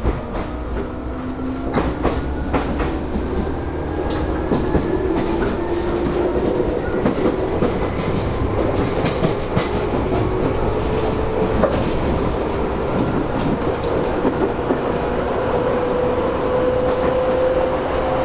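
Running sound inside a Tobu 10000 series electric train's motor car: the traction motors and gears hum in a pitch that rises steadily as the train accelerates, over a low rumble, with the wheels clicking over rail joints now and then.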